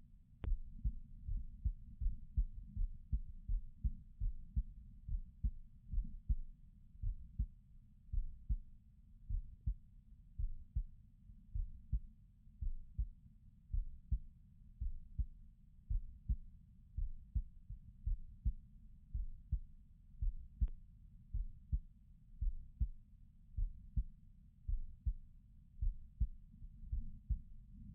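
A person's heartbeat: a steady, even run of low, dull beats. A faint click sounds just after the start and another about two-thirds of the way through.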